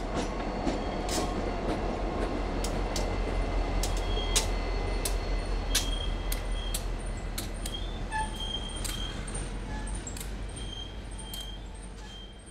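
A freight train rolling past: a low diesel rumble with many sharp wheel clicks over the rail joints as a single boxcar goes by. The sound fades away near the end as the train moves off.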